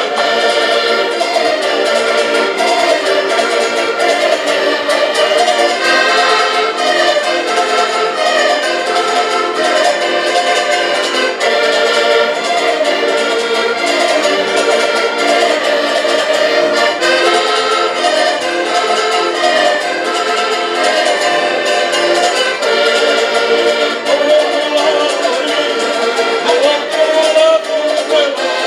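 A group of diatonic button accordions playing a Portuguese folk tune together, with a small strummed string instrument, in one continuous, steady run of music.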